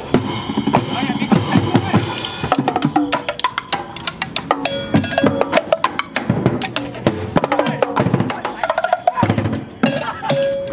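A percussion ensemble drumming with sticks on plastic buckets, drums, cymbals and metal pans: a dense run of strikes, with cymbals and metal ringing over them.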